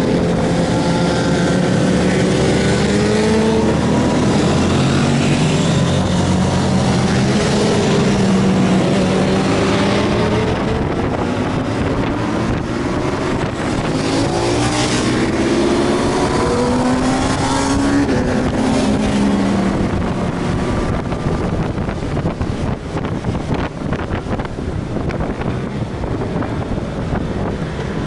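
Honda Gold Wing GL1500's flat-six engine running under load on the move, its pitch climbing and dropping repeatedly as the throttle is worked. Wind buffets the microphone, getting rougher near the end.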